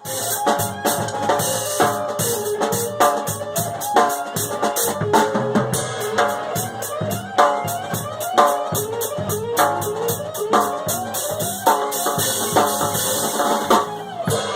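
Music with a drum kit playing a steady beat under pitched instrumental parts.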